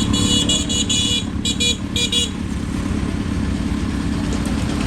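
A vehicle horn with a high-pitched, reedy tone gives one long blast and then several short toots over about two seconds, over a steadily running engine.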